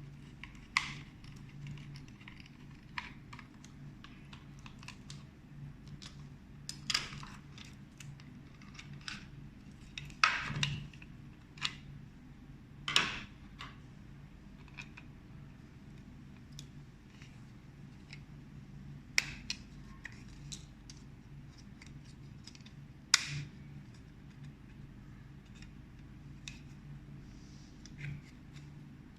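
Scattered clicks, taps and short scrapes of small plastic and metal parts being handled while a set-top box is taken apart or put together, with the loudest clicks about 10 s, 13 s and 23 s in.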